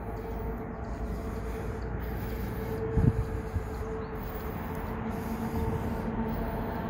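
Steady low rumble of distant road vehicles with a faint held hum, and a single thump about three seconds in.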